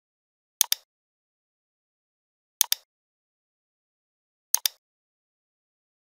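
Computer mouse button clicks, three in all about two seconds apart, each a quick double tick of the button pressed and released.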